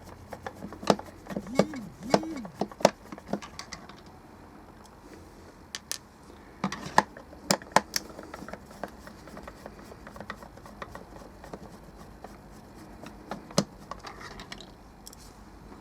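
Scattered sharp clicks and taps of a small plastic speaker housing and a screwdriver being handled during disassembly. They come thickest in the first few seconds and again about seven seconds in.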